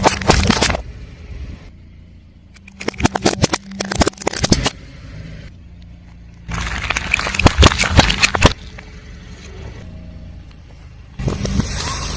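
Car tyre rolling over and crushing brittle objects: dense crackling and snapping in several separate bursts, with a low engine hum between them.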